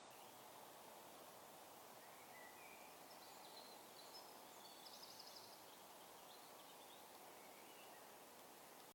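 Near silence: faint background hiss, with a few faint, short, high chirps around the middle.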